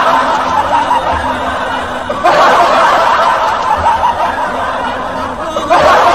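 Audience laughter, a canned laugh track, rising anew about two seconds in and again near the end.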